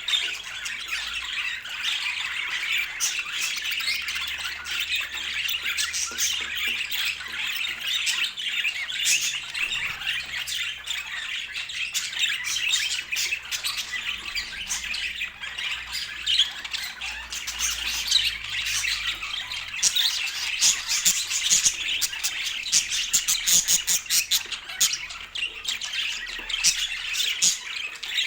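Budgerigars chattering and squawking without pause, a dense overlapping warble with many sharp chirps that come thicker in the second half.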